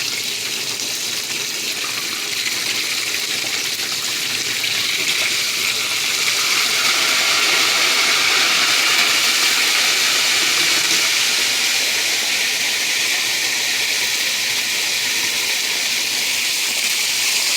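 Pork chops frying in a pan, a steady sizzle that grows louder about six seconds in.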